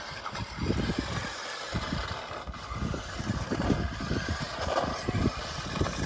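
Radio-controlled toy jeep driving about on a gravel driveway, its small electric motor and tyres running, with irregular low rumbles throughout.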